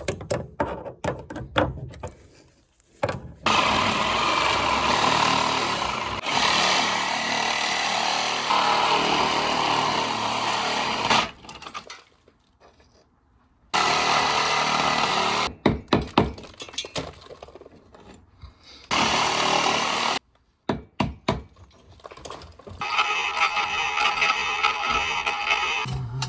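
A power tool running in several long bursts that start and stop abruptly, with sharp knocks and taps between the bursts.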